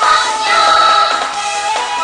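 Recorded music for a children's dance, with a choir of voices singing over bright accompaniment.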